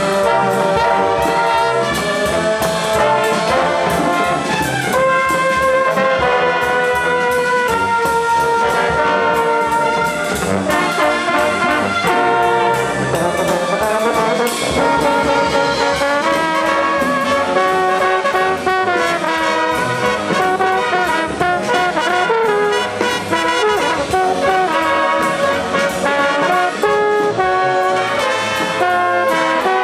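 Drum and bugle corps playing: brass horns carry a melody of held and moving notes over drum kit, timbales and congas.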